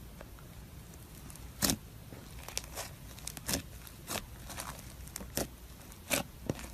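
Crunchy slime crackling and popping: about ten sharp, irregular crackles beginning about a second and a half in.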